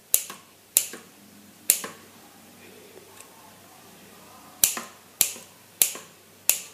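Kitchen scissors snipping a rope of soft sesame dough into small pieces: seven sharp snips at an uneven pace, three in quick succession, then a pause of about three seconds, then four more about half a second apart.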